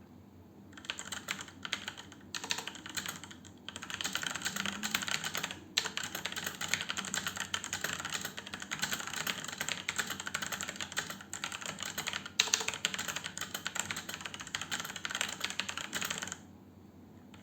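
Fast typing on a mechanical keyboard with brown (tactile) switches: a rapid, dense stream of keystrokes with a few short pauses. It starts about a second in and stops about a second before the end.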